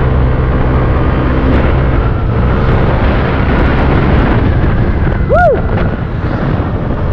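Yamaha Aerox scooter's single-cylinder engine running at a steady road speed, with wind rushing over the microphone. About five seconds in, a brief whistle-like chirp rises and falls.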